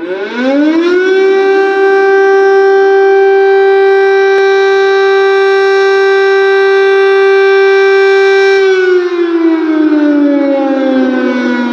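Loud air-raid siren sounding an air-strike alert. It rises in pitch over about a second, holds one steady tone, then starts sliding slowly down in pitch about three-quarters of the way through.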